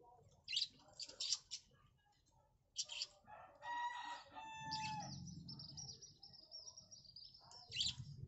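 A rooster crowing once about halfway through, with short bird chirps before it. A thin high note holds for a few seconds after the crow.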